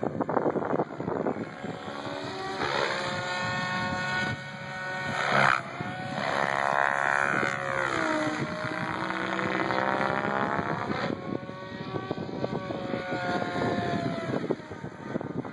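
Electric SAB Goblin 770 RC helicopter in flight, its motor whine and rotor blade noise rising and falling in pitch as it manoeuvres.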